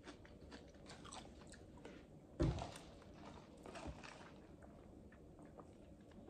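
Close-miked chewing of a mouthful of French fries, faint, with many small wet mouth clicks, and a single thump about two and a half seconds in.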